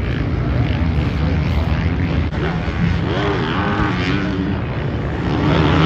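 Several 450cc motocross bikes racing round the track, their engines revving up and down as they accelerate and back off.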